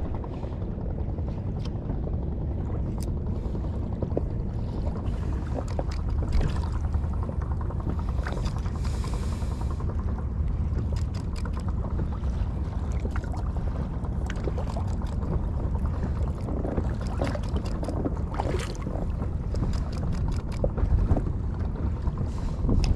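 Steady low rumble of wind and water around a small inflatable boat, with scattered light clicks and knocks and a brief hiss about nine seconds in.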